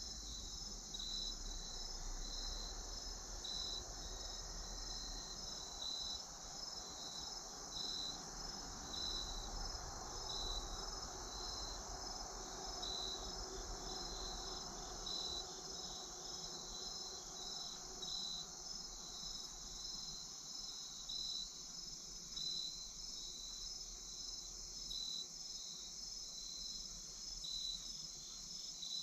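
Evening chorus of crickets and other insects: a steady high-pitched shrill, with a pulsing chirp repeating a little more than once a second.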